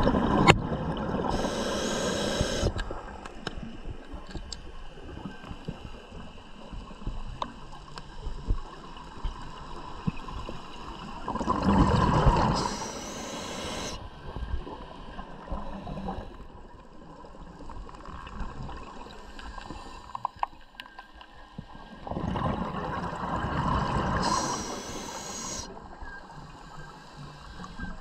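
Scuba diver's regulator breathing underwater: three long gurgling bursts of exhaled bubbles about ten seconds apart, with a lower hiss and scattered faint clicks in between.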